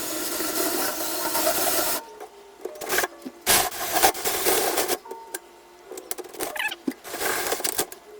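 Power drill with a 2-1/8-inch hole saw cutting into a door for about two seconds, then stopping. After it come irregular scraping and rubbing on wood with a few sharp knocks.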